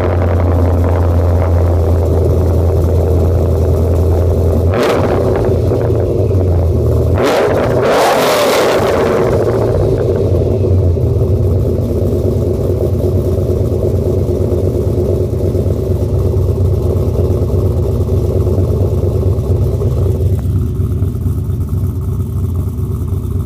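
2002 Chevrolet Camaro's exhaust idling with a deep, steady drone, just after the engine has been started. There are two short revs, about five seconds in and around eight seconds in, before it settles back to a steady idle.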